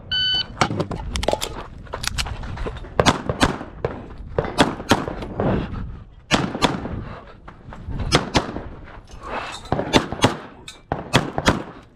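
Electronic shot-timer start beep, then a string of about two dozen CZ Shadow 2 pistol shots, many in quick pairs, with short pauses between groups as the shooter moves between positions.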